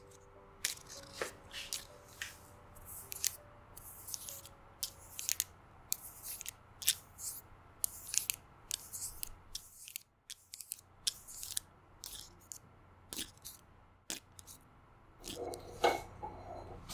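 Long acrylic press-on nails clicking, tapping and scratching against one another close to the microphone: irregular crisp ticks, several a second, with a short pause about ten seconds in.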